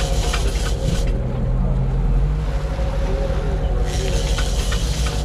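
Boat engine running steadily with a low hum, with rushing noise at the start and again near the end.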